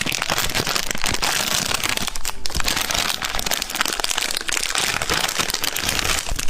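Plastic ice-cream-bar wrapper crinkling close to the microphone: a dense, continuous run of small crackles that cuts off abruptly at the very end.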